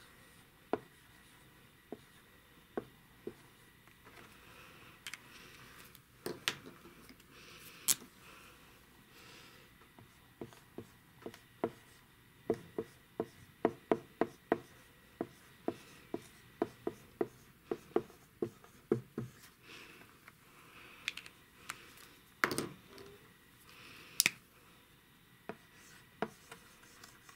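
Dry-erase markers writing on a whiteboard. The tips tap the board in a string of short sharp clicks, thickest through the middle, with soft rubbing strokes between them.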